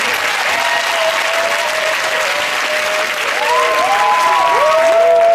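Studio audience applauding steadily, with whoops rising over the clapping in the second half.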